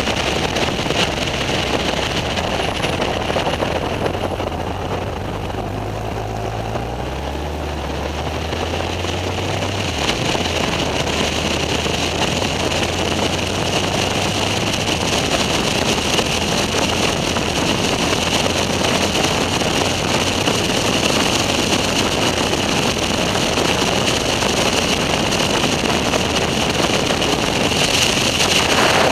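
Motorcycle riding at road speed: steady wind noise on the microphone and road noise over a low engine drone, whose pitch shifts about a quarter of the way in.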